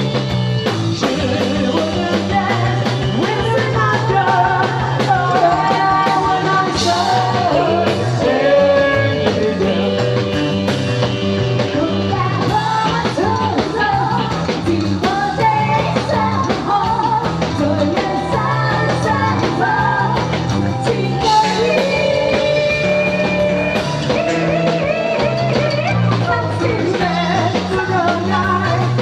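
A singer performing a rock-and-roll song over band accompaniment with a steady drum beat.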